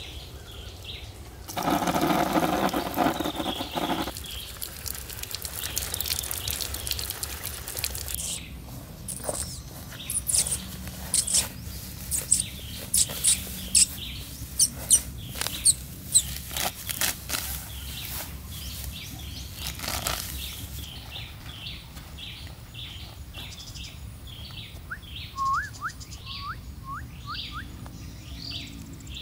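A loud rough scraping burst lasting a couple of seconds near the start, then a run of sharp snaps and rips as clumps of grass are torn up by hand. Birds chirp with short quick repeated calls near the end.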